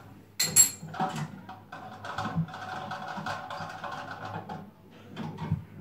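Metal clinks and light knocks of a hand tool loosening the flex hose connection on the float valve inside a concealed toilet cistern. A sharp ringing clink comes about half a second in, followed by a run of small clicks with a faint steady tone underneath.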